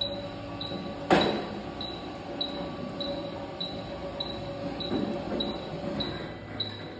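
A wheelchair platform stair lift running along its stair rail: a steady motor hum with a short high warning beep repeating about every 0.6 s. A single clunk about a second in.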